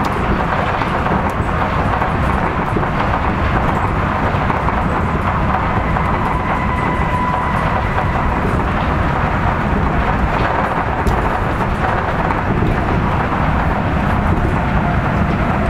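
Kitakyushu Monorail straddle-beam train running between stations, heard from inside the car: a steady rumble of its rubber tyres on the concrete guideway, with a faint whine midway.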